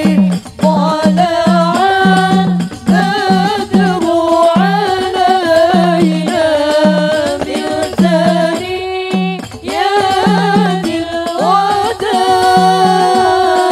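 Women singing an Arabic sholawat, a devotional praise song for the Prophet, into microphones through a PA, over a steady repeating drum beat.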